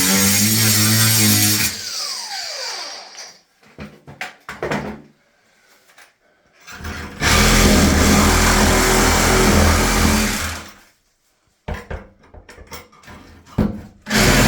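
Milwaukee M18 cordless 4-1/2 in. cut-off grinder run in long bursts. After each burst the motor winds down with a falling whine, followed by a few short trigger blips, then it starts again near the end.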